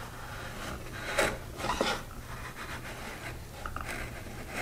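A chisel plane shaving excess glue off the edge of an oak box: two short scraping cuts, about a second in and just under two seconds in, followed by quieter handling.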